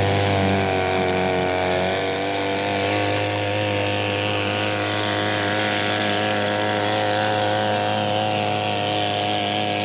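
Outboard motor pushing a canoe, running at a steady drone; its pitch dips slightly between one and two seconds in.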